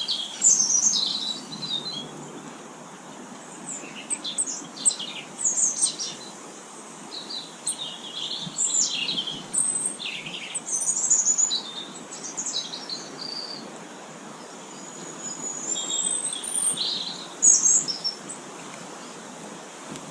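Small garden songbirds calling: a scatter of short, high chirps and twitters, with a thin rising whistle near the end.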